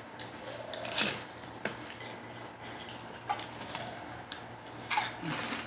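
Eating with the hands from a foil tray: scattered mouth smacks and finger-licking with small clicks and rustles, the loudest about a second in and again near the end.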